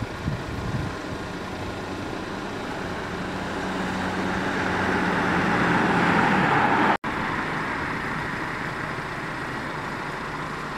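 Road traffic: a vehicle's engine and tyre noise grows louder over about six seconds, breaks off abruptly at about seven seconds, then gives way to a steady traffic hum.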